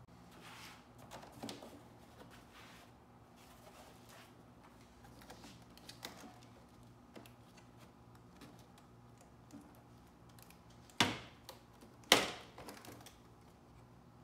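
Hands working the stock plastic air intake ducting loose in a Mercedes-Benz C300's engine bay: scattered light clicks and rustling, with two sharp clacks about a second apart near the end.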